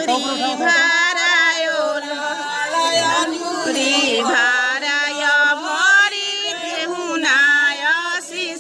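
A group of women singing a traditional Bhojpuri wedding folk song together, with long, wavering held notes and no instruments.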